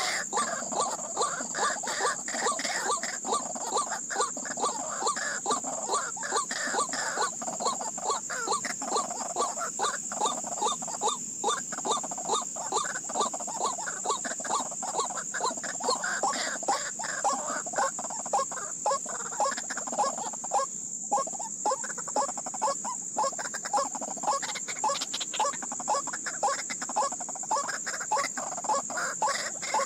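White-breasted waterhen calls: a harsh, clucking 'kru-ak' repeated evenly about twice a second without a break.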